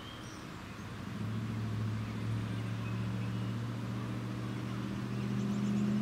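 Steady low hum of a motor that sets in about a second in and slowly grows louder.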